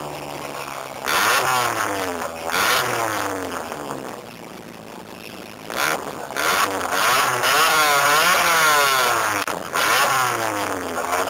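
Tuned car's engine revved repeatedly while parked, its pitch climbing and falling several times, with a longer, higher rev about two-thirds of the way through.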